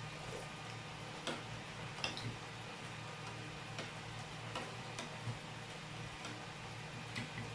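Spoons and hands on china: light, irregular clinks and clicks of cutlery against plates and bowls during a meal, about one every second, over a low steady hum.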